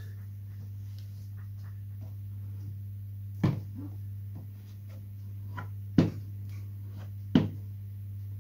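Sharp knocks and light taps from handling a small covering iron against a balsa glider fuselage, three of them louder, over a steady low hum.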